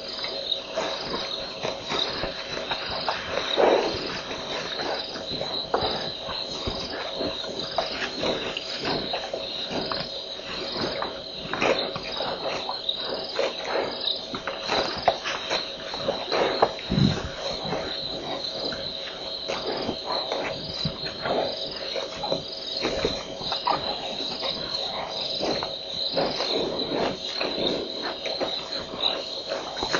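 A night chorus of crickets. One high trill pulses at a regular rate and another steady lower tone runs under it, with irregular soft knocks and rustles scattered throughout.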